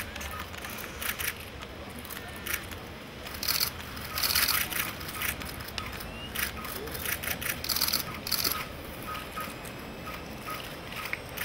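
Camera shutters clicking in quick bursts, with clusters of clicks a third of the way in and again past the middle.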